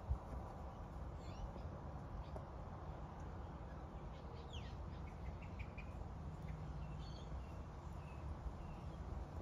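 Birds chirping faintly in short, scattered calls over a steady low background rumble, with a brief soft knock right at the start.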